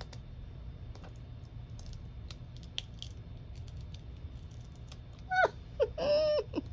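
Faint scattered clicks and light taps of small craft materials and tools being handled, over a low steady hum. Near the end a short wordless voice sound, like a hum or 'ooh'.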